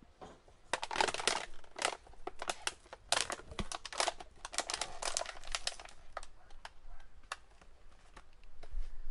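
Sulphur-crested cockatoo cracking and chewing food held in its foot: a dense run of crisp crackles and clicks that thins to scattered clicks over the last few seconds.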